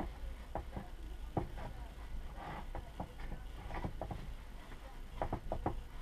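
A cloth rag wiping and rubbing a suspension fork's crown and stanchions: irregular light scuffs and clicks as the hands and parts shift, with a short rustle about halfway and a quick run of clicks near the end, over a steady low hum.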